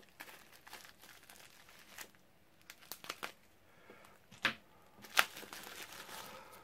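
Bubble wrap and plastic packaging crinkling and tearing as it is cut and pulled open by hand, with scattered crackles and two sharper ones in the second half.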